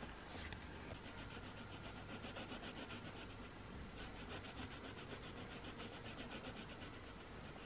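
Colored pencil scratching on paper in quick back-and-forth strokes, several a second, while filling in a space; it stops briefly about halfway, then goes on.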